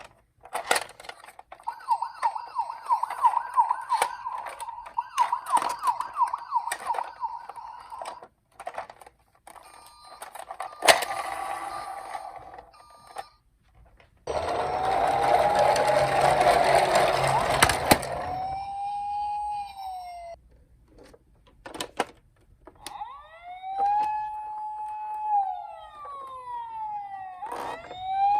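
Electronic sirens of toy emergency-vehicle minicars: a fast warbling siren in the first several seconds, a loud, noisy stretch around the middle, then wail-type sirens that rise, hold and fall near the end. Scattered clicks and knocks run throughout.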